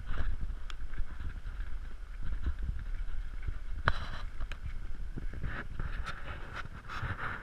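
Pickup truck driving slowly on a rough gravel dirt road, heard from outside the cab: a steady low rumble with scattered clicks and knocks of tyres rolling over stones, the sharpest about four seconds in.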